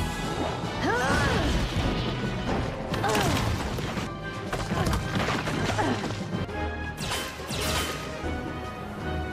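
Cartoon action soundtrack: background music under crash and smash sound effects, with a big crash about three seconds in and another about seven seconds in.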